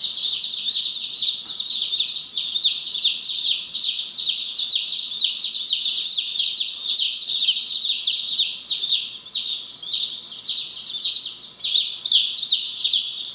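A crowd of Light Brahma chicks peeping loudly and without a break: many high, short, downward-sliding cheeps overlapping several times a second.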